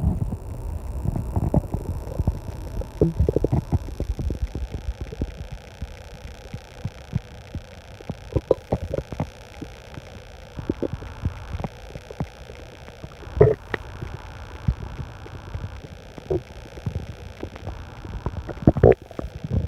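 Human stomach growling: irregular low rumbles and short gurgles, with a sharper gurgle about thirteen seconds in.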